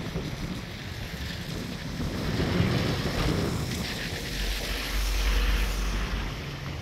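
Wind buffeting the microphone, with a heavy gust about four seconds in, over the steady rush of a river in flood.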